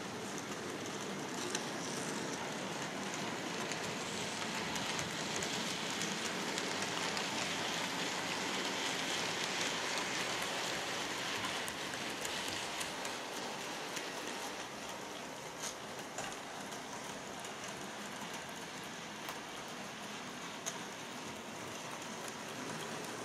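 Model railway locomotive hauling a loaded goods train round the track: a steady rattling whir of its motor and wheels on the rails, with a few small clicks.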